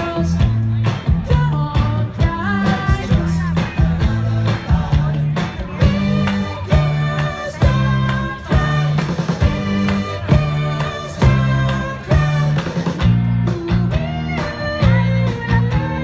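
Pop-rock song with singing over guitar and a heavy, pulsing bass line.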